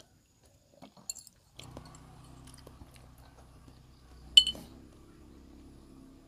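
Eating at a meal: soft chewing and small clicks of tableware, with one sharp ringing clink of a dish or glass about four and a half seconds in. A low steady hum sets in about one and a half seconds in.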